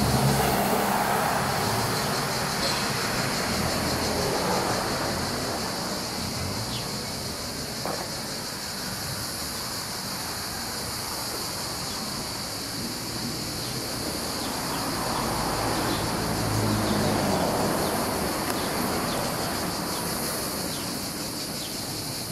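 Street ambience with cars passing, one near the start and another about two-thirds of the way through, over a steady high chirring of crickets.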